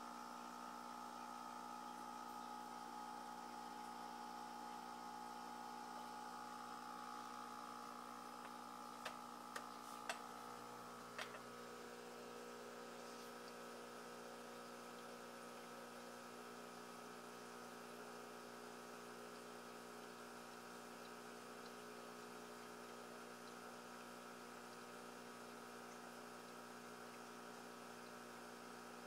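Low, steady electric hum of running aquarium equipment. A few short clicks come about nine to eleven seconds in.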